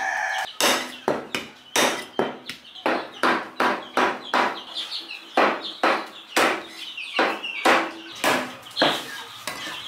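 A heavy curved chopping knife chopping turkey meat into pieces on a wooden chopping block: a steady run of sharp chops, about three a second.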